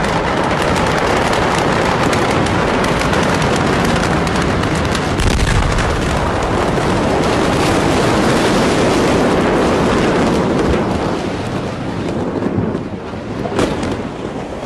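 Aftermath of a massive explosion: a loud, continuous rushing roar with a deeper boom about five seconds in, easing somewhat near the end.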